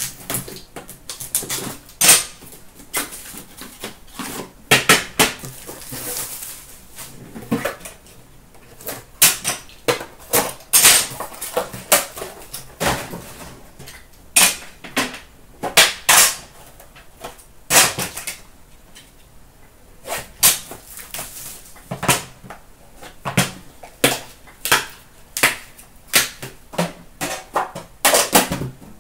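Hands opening a hockey card box: a cardboard outer box handled and a metal tin set down and its lid lifted off. Irregular sharp clicks, knocks and scrapes with short rustles of cardboard.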